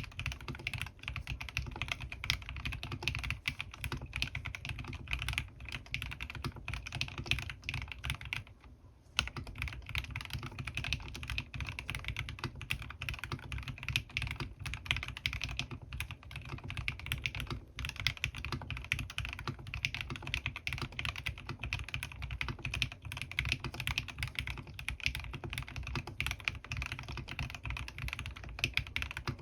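Typing on a custom mechanical keyboard fitted with Krytox-lubed Gateron North Pole linear switches and PBT keycaps: fast, continuous keystrokes, with a brief pause about nine seconds in.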